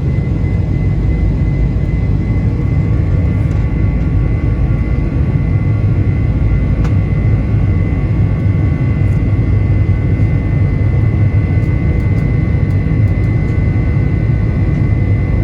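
Boeing 747-400's four Pratt & Whitney PW4056 turbofan engines running at a steady, loud level: a deep rumble with a thin high whine above it.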